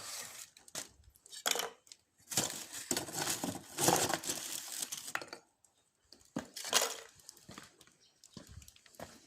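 Charcoal being handled in a small Japanese charcoal grill: irregular clinking, scraping and rustling, busiest in the middle, with two sharp clinks later and faint small clicks near the end.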